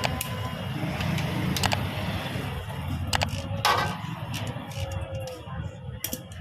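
A steady low mechanical drone, like a motor running, with sharp metallic clinks every second or two.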